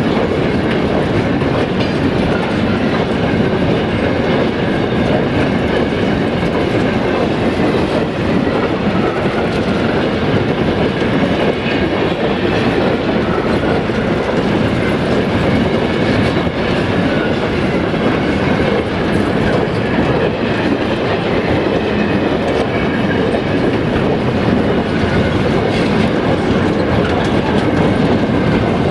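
Freight wagons rolling past in a steady rumble, their steel wheels clattering over the rail joints.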